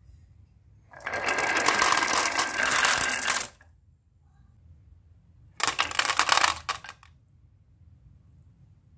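Glass marbles clattering down a wooden marble run in two rapid runs: a dense rattle of about two and a half seconds starting about a second in, then a shorter run of many separate clicks past the middle.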